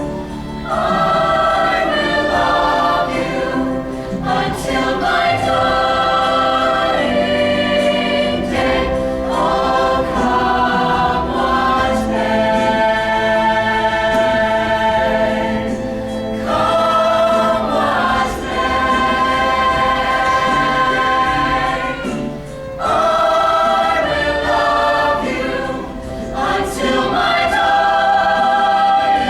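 A choir singing long held chords together, with short breaks between phrases about 4 seconds in and again near the end.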